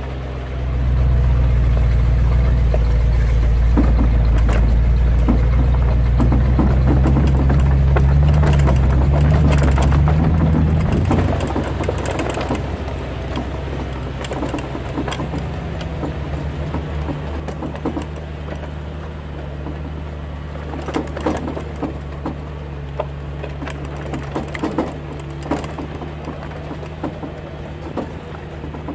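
Truck engine pulling a steel drag along a dirt road. It runs loud for the first ten seconds or so with its pitch rising, then eases to a quieter, lower steady drone about eleven seconds in. Scattered knocks and rattles come through over it.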